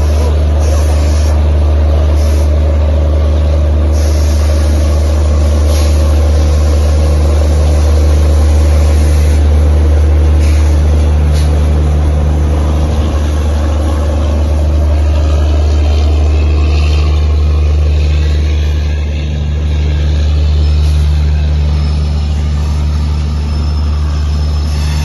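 Departing Rajdhani express train passing close: its electric locomotive and diesel luggage, brake and generator car go by with a loud, steady low hum. Faint wavering squeals, typical of wheels on the rails, come in about halfway through as the coaches follow.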